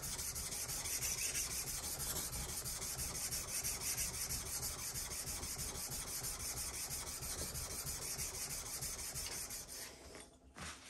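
Steel plane iron of a Qiangsheng Luban rabbeting block plane rubbed back and forth on an abrasive sharpening plate, a steady scratchy grinding that stops near the end. The blade's bevel is being honed to remove the factory grind marks from its edge.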